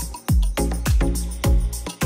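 Background music with a steady beat and a deep kick drum.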